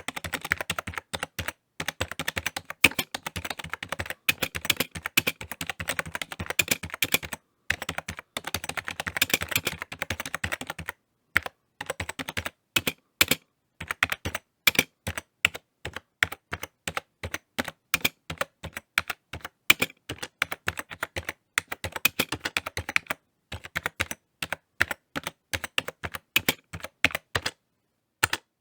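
Typing on a computer keyboard: rapid runs of key clicks broken by short pauses, with single sharper keystrokes in between.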